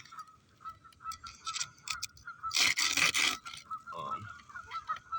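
Geese honking, a continuous wavering call. A loud scraping rush cuts across it about halfway through, with a few sharp clicks just before.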